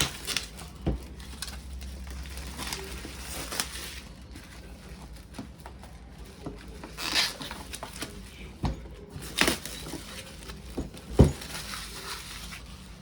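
Keyboard packaging and the keyboard being handled: rustling and crinkling with scattered clicks and knocks, the loudest a sharp knock near the end.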